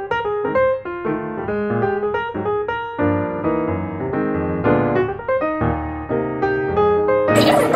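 Background piano music: a melody of distinct notes over lower chords. Near the end, a loud, even noise suddenly cuts in over the music.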